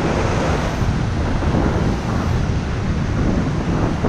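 Ocean surf breaking and washing up the beach in foamy whitewater, heard from right in the wash as a steady rushing noise, with wind buffeting the microphone.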